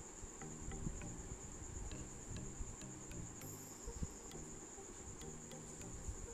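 A steady high-pitched whine over faint, soft background music, with a few faint clicks.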